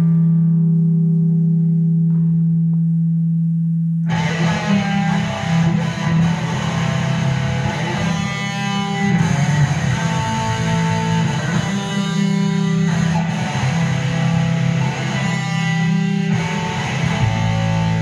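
Live rock band with distorted electric guitars: a single held, distorted note rings out, then about four seconds in the drums, guitars and bass crash in together and the band plays on at full volume.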